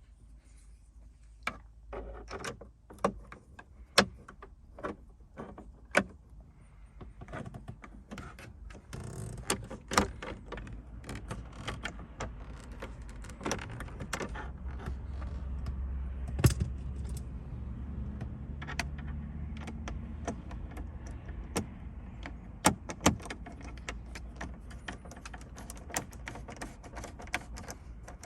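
Screws being driven back into the car's plastic interior trim with a T20 Torx bit: irregular sharp clicks and taps of the metal tool and screws against the plastic, with handling rustle and a low rumble swelling in the middle.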